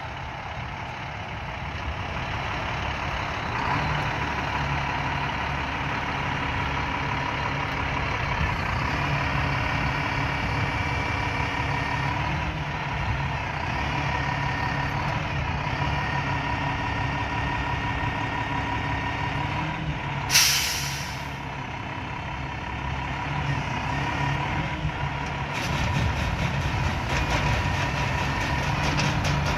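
A 2007 International 7600 bulk feed truck's diesel engine running steadily, with whining tones that come and go in stretches while the unloading auger is raised. About twenty seconds in there is one short, sharp hiss of released air, and the running gets a little louder near the end.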